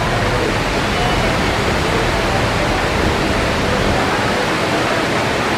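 Water falling steadily over the Mirage volcano's artificial waterfall into its lagoon, heard as an even rushing noise.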